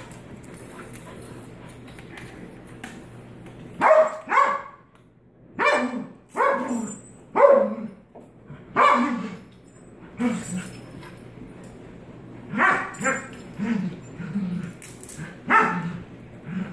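Two dogs squabbling over rawhide chews, one barking in short, sharp barks. After a few quiet seconds, the barks come in quick runs of two or three, about a dozen in all.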